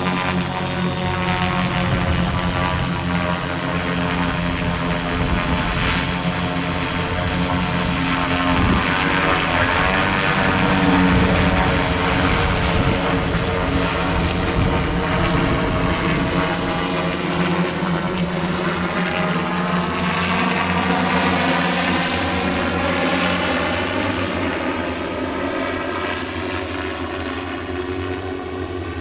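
Single-seat SKYLA electric multirotor drone taxi in flight, its BLDC-motor propellers giving a steady hum of several pitched tones that shifts slowly as it moves. It gets somewhat quieter near the end.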